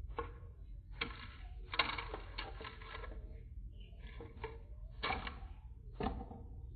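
Plastic Lego pieces being handled, with irregular clicks and rattles in short bursts over a steady low hum.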